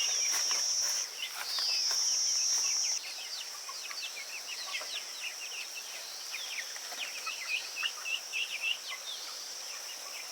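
High-pitched steady insect buzzing, loudest in two long pulses in the first three seconds and then fainter, with many short bird chirps throughout.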